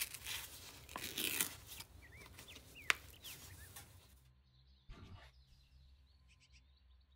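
Paper muffin liner crinkling and tearing as it is peeled off a baked chocolate muffin, with one sharp crackle about three seconds in. After about four seconds it gives way to a faint low hum.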